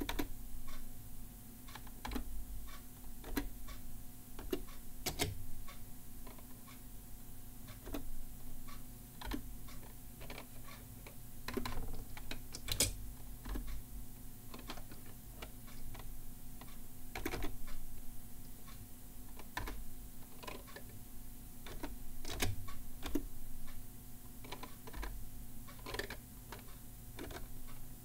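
Slow, halting hunt-and-peck typing on a SafeType vertical ergonomic keyboard: single key clicks, irregularly spaced, about one a second, as each key is searched for on its upright side panels.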